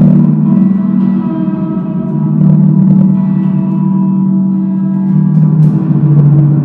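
Sound-art drone: a loud, sustained low hum with several steady, gong-like ringing tones layered above it, pulsing slightly throughout.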